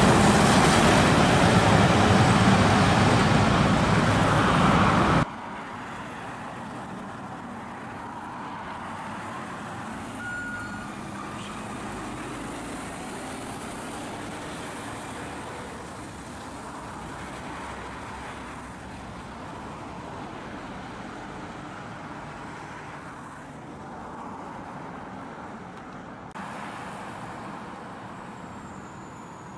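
Heavy articulated lorries driving past on a road, engine and tyre noise. The sound is loud for the first five seconds, then drops suddenly to a quieter, steady rumble for the rest.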